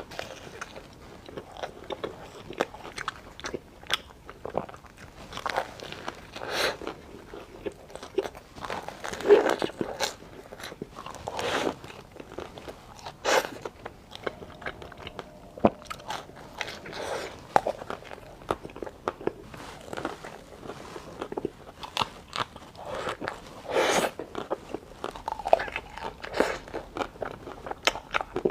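Close-up bites and chewing of a chocolate vanilla mille-feuille ice cream: crisp crunches of the layers, coming irregularly every second or two between quieter chewing.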